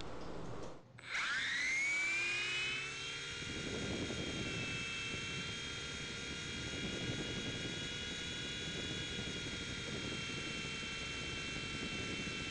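Blade mCX2 micro coaxial RC helicopter's electric motors spinning up, their whine rising over a couple of seconds as it lifts off, then holding a steady high whine with rotor-wash rushing in hover and cruise, heard close-up through the keychain camera mounted on the helicopter.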